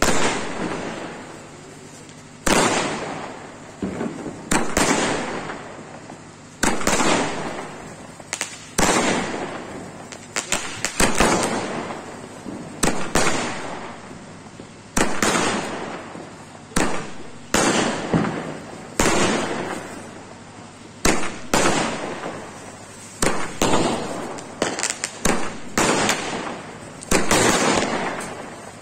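Aerial fireworks going off in quick succession, a sharp bang roughly every second, each trailing off before the next.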